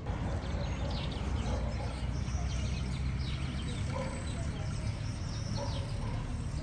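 Small birds chirping and twittering repeatedly over a steady low rumble.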